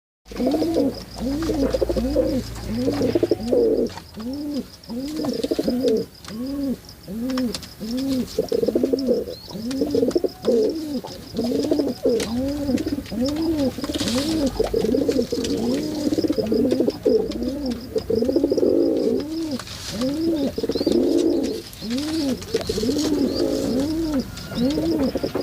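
Domestic fancy pigeons cooing continuously, several birds overlapping, each coo a quick rise-and-fall repeated about twice a second. A faint steady high whine runs underneath.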